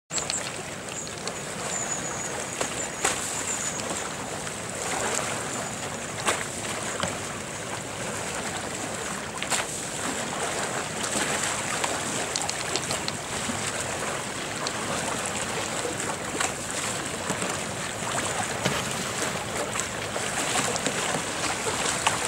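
Slalom kayak paddles splashing and water sloshing around the hulls as the boats pivot on flat water, over a steady rush of water noise, with scattered short splashes.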